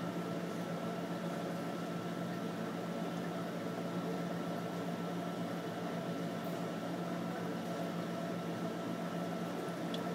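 Steady mechanical hum of aquarium equipment (pump and filtration) under a constant hiss, with a low drone and a faint higher whine that hold unchanged.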